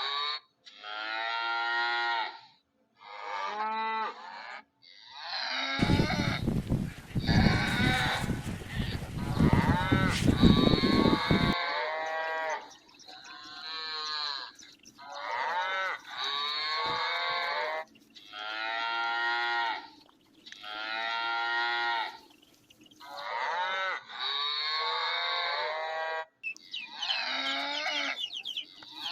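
Cattle mooing over and over, a long run of separate calls of a second or two each with short gaps between them. A loud rushing noise covers the calls for several seconds about a quarter of the way in.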